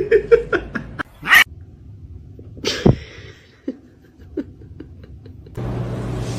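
A cat making short, sharp noisy sounds, two clear ones about a second and a half apart, with faint taps between. A steady hum starts near the end.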